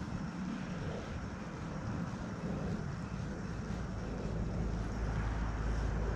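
A steady, low engine drone that gets louder in the second half, with a deeper rumble coming in about four seconds in.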